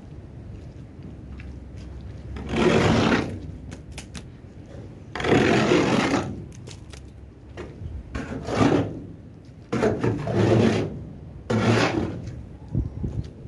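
Long-handled scraper dragged along the floor of a livestock trailer, scraping out muck in five scraping strokes, each about a second long.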